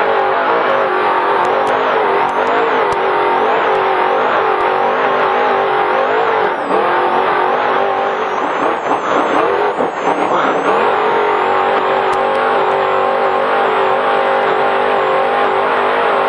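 Trophy Truck's V8 engine running hard under race throttle, heard on board; the revs rise and dip repeatedly through the middle, then hold steady near the end.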